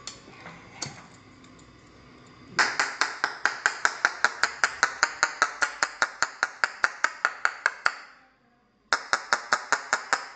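Steel chipping hammer rapidly tapping on a stainless-steel coffee-pot lid deflector around a freshly brazed screw, knocking off the glassy brazing-flux residue. There are about six light metallic taps a second in a long run, then a short pause and a second run near the end.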